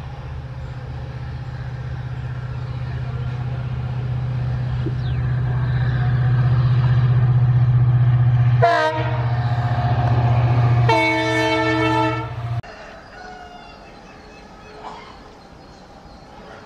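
WDP-4 diesel-electric locomotive approaching with its coaches, the engine drone growing steadily louder. It sounds a short horn toot about nine seconds in and a longer horn blast around eleven seconds. The train sound cuts off abruptly about twelve and a half seconds in, leaving a quieter background with faint bird calls.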